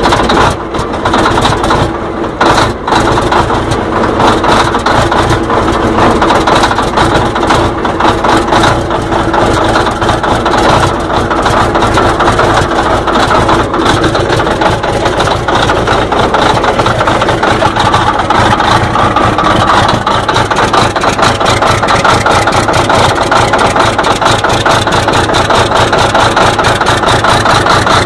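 Large cold diesel engine of a yellow heavy machine turning over steadily and loudly with a fast, even pulsing, struggling to start in freezing weather.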